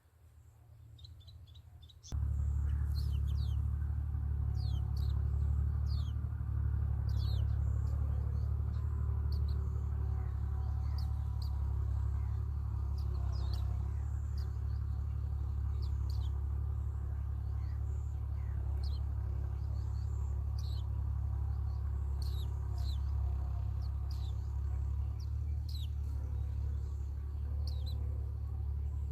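Nestling birds giving repeated short, high, down-slurred begging chirps, calling for food. From about two seconds in, a steady low hum sets in underneath and is the loudest sound.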